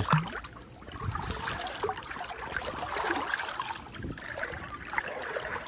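Pool water splashing and sloshing in small, irregular splashes as a Vizsla puppy paddles.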